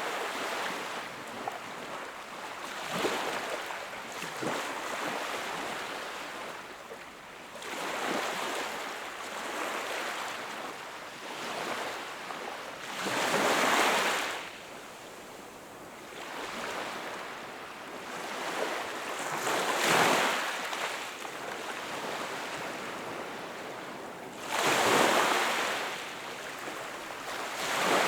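Sea waves breaking and washing onto the shore, swelling and fading every few seconds, with louder breakers about 13, 20 and 25 seconds in and again near the end.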